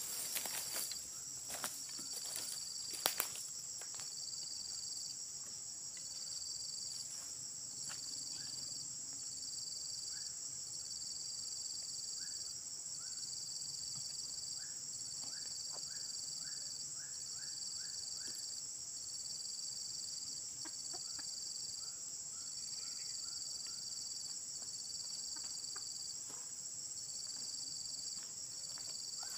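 Insect chorus: a steady high-pitched drone over a second, lower note that pulses on and off roughly once a second. Near the middle comes a short run of faint chirps, and there are a few sharp clicks near the start.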